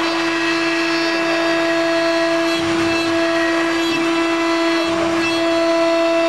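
CNC router spindle running with a steady high whine while it cuts a log turning on the rotary axis. A rougher cutting noise joins from about two and a half seconds in until a little past five seconds.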